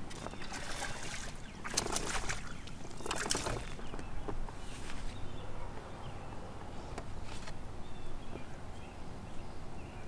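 A hooked smallmouth bass splashing at the water's surface beside a kayak as it is landed, in a few short bursts over the first five seconds, followed by a few faint knocks as the fish is handled.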